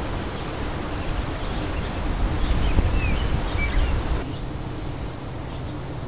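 Short high bird chirps and slurred whistles, several in the first four seconds, over a low rumble; about four seconds in the rumble gives way abruptly to a quieter steady low hum.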